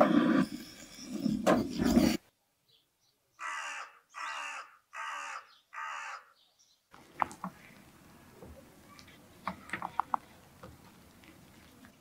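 A crow cawing four times in a row, each caw about half a second long. It follows a louder noisy sound that stops abruptly about two seconds in, and scattered light clicks follow the caws.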